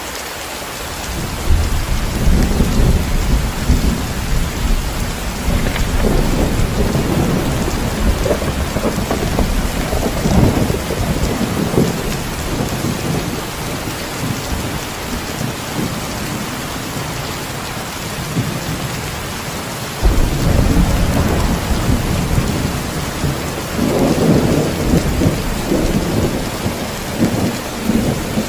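Heavy, steady rain with rolling thunder. One long rumble builds about a second and a half in, another breaks in suddenly about two-thirds of the way through, and the thunder swells again near the end.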